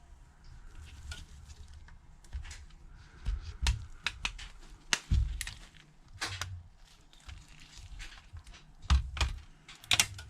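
Plastic clips of a Samsung Galaxy A20s cover snapping loose as a metal jimmy pry tool works around the edge: irregular sharp clicks and small snaps, the loudest two near the end.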